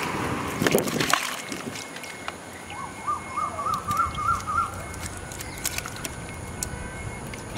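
Water sloshing and splashing in a plastic bucket as hands work a tilapia free of a net, with louder splashes about a second in. A bird gives a quick run of short chirps about three seconds in.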